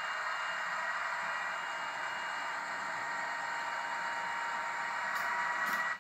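H0-scale Roco ST44 model diesel locomotive running along the layout track with a steady whine and hiss. Two short clicks come near the end, then the sound cuts off abruptly as a short circuit drops the power.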